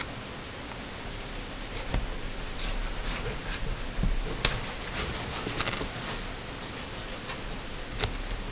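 Small plastic and metal clicks and taps from laptop parts and a small tool being handled during disassembly, over a steady hiss. A sharper click comes about halfway through, and a brief metallic tick with a thin ring follows soon after.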